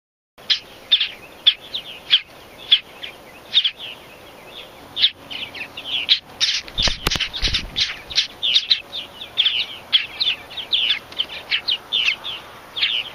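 Purple martin nestlings begging: a dense stream of short, high chirps, several a second, with a brief low rumble about halfway through.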